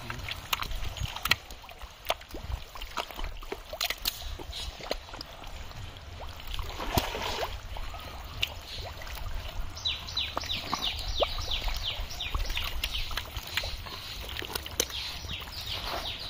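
Wet mud squelching and water sloshing, with scattered splashes and sharp clicks, as hands and fish move in sticky mud and a basin of muddy water. From about ten seconds in, a rapid run of short high chirps repeats several times a second.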